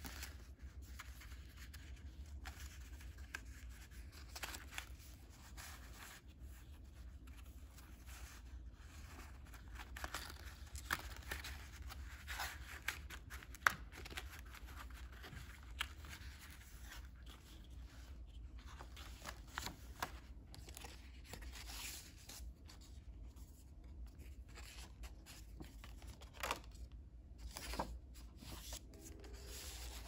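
Faint rustling, scraping and soft tapping of heavy paper as the pages of a handmade junk journal are handled, a tag is slid out of a page pocket and a page is turned, over a steady low hum.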